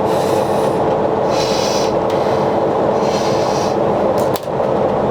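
A yacht's engine droning steadily under way, a constant rumble with a fixed hum, with two short bursts of hiss about a second and a half and three seconds in.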